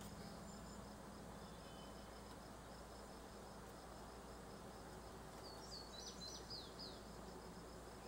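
Faint outdoor animal sounds: a high chirp repeating steadily about four times a second, insect-like, and about six seconds in a short run of quick, falling high notes from a bird.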